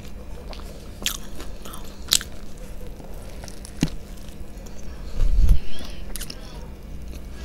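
Close-miked eating sounds of biting into and chewing a fried chicken burger, with a few sharp crunches. A loud, low thump comes about five seconds in.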